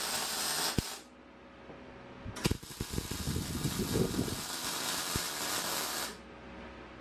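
MIG welding arc running as a bead is laid. It stops about a second in, and after a short pause a second bead is struck with a sharp click and runs for about three and a half seconds before cutting off.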